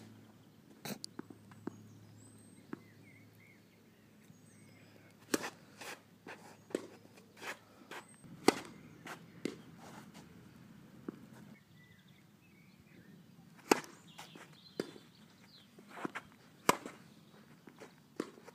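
Tennis rackets striking the ball in a rally, sharp pops a few seconds apart, the loudest from the near player, with fainter pops from the far racket and ball bounces between. Birds chirp faintly.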